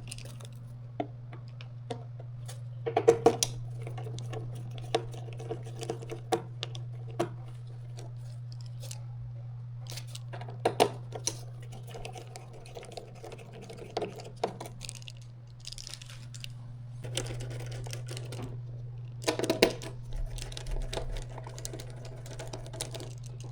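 Scattered clicks and short metallic clatters of hands and tools working on a spectrum analyzer's screws and metal case, over a steady low hum.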